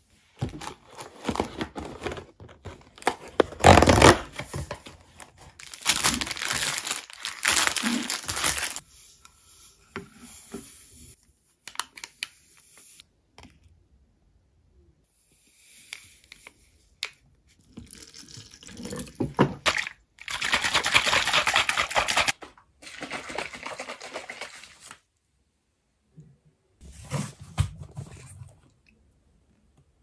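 Packaging being handled: irregular stretches of rustling and tearing, heaviest in the first nine seconds and again around twenty seconds in, with quiet gaps between.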